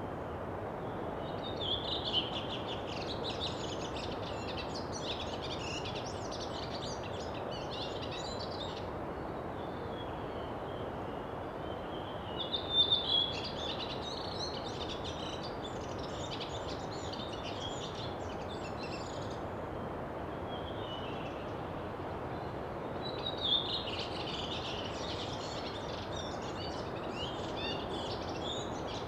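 Birds chirping and singing in three bouts of several seconds each, over a steady background hiss.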